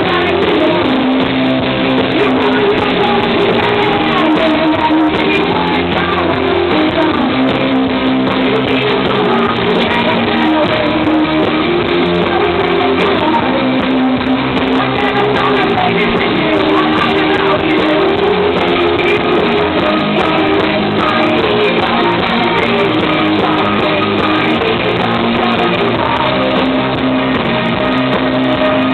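A rock band playing live and loud, with held chords under a steady full-band sound.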